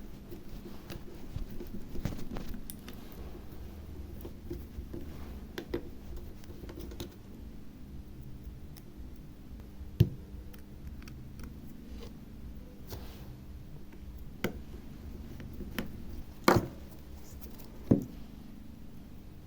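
Scattered light clicks and scrapes of small tools and tablet parts being handled during reassembly, with a few sharper clicks in the second half, over a steady low hum.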